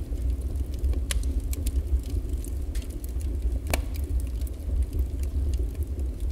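Wood fire burning, with irregular sharp crackles and pops over a steady low rumble.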